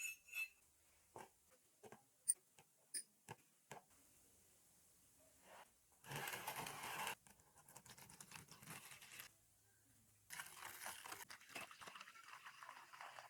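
Hand work on a rusty padlock: a string of light clicks and taps, then two spells of scratchy scraping.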